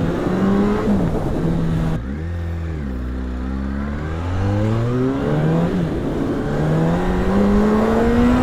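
2006 Yamaha R1's inline-four engine with stock exhaust, accelerating: the revs climb, fall back at a gear change about a second in, then climb again in long rising pulls with another shift just before six seconds.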